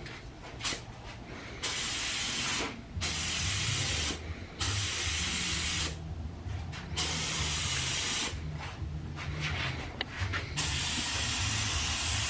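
Compressed-air gravity-feed paint spray gun hissing in repeated passes of about a second each, the trigger pulled and released with short gaps between, as colour coat goes onto an engine bay. A low hum runs underneath.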